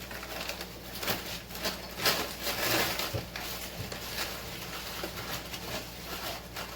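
Ground turkey with frozen onions and peppers sizzling in a hot frying pan, with uneven scraping and stirring in the pan that is loudest for a stretch about two seconds in.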